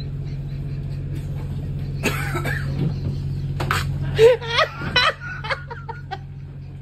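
A person coughing a few times over a steady low hum of the boat, with short vocal sounds after about four seconds; the hum drops away about four seconds in.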